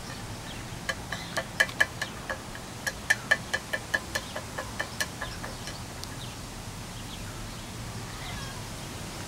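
A cockatoo's beak pecking and tapping at a metal drink can: a run of sharp taps with a short ring, about four a second, starting about a second in and stopping about five seconds in.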